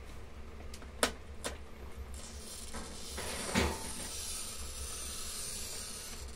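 A few light taps and clicks of a pane of glass being handled, then a steady scratching hiss for about four seconds as a pen-like tool is drawn across the glass, with a short squeak near the middle.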